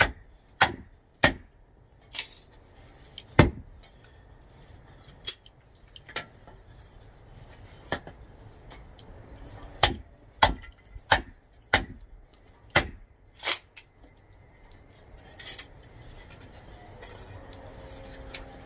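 Kindling wood being chopped into small pieces: about fifteen sharp wooden knocks at an uneven pace, with a quicker run of them in the second half.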